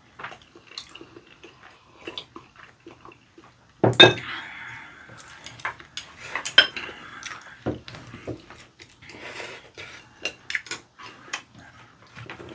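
Chopsticks and ceramic dishes clinking at a meal table in scattered light clicks, with one louder ringing clink about four seconds in.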